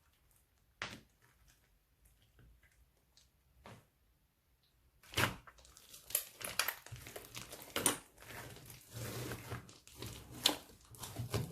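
Fluffy slime being squished and stretched by hand, with sticky crackles and pops. A few soft clicks come first, then a dense run of crackling from about five seconds in.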